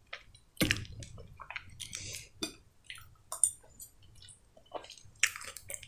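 A person chewing food close to the microphone: wet mouth noises with irregular short clicks, the loudest a little over half a second in.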